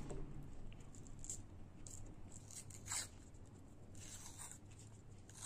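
Faint paper rustling and tearing as a paper tea cup is snipped with scissors and peeled off a frozen ice-cream lolly, with a few short bursts, the clearest about three seconds in and around four seconds.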